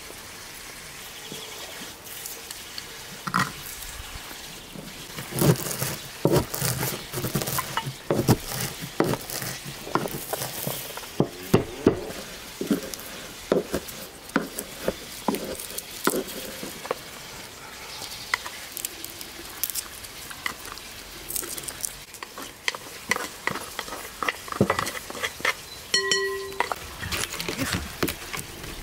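Wooden pestle pounding walnuts in a small wooden mortar, with a knife clicking against a small glass dish as garlic cloves are cut: a run of irregular knocks and clinks, busiest in the middle. A short pitched ring sounds near the end.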